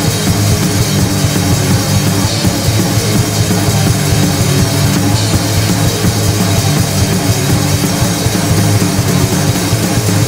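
Loud, dense rock music with a full drum kit, playing without a break.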